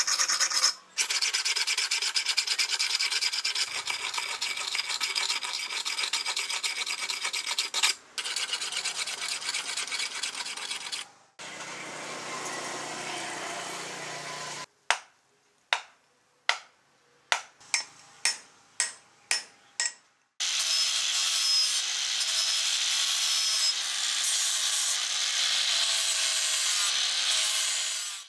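Hand file rasping along the edge of a steel blade in quick repeated strokes for about eleven seconds. After a few seconds of steadier rushing noise comes a series of about eight sharp strikes. From about twenty seconds in, an angle grinder runs steadily with a faint steady whine.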